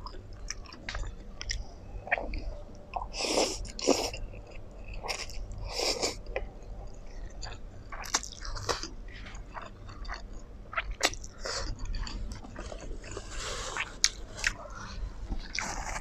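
Close-miked chewing of black bean noodles and fried braised pork, with many short wet mouth clicks and a few longer, louder slurping sounds about three to six seconds in.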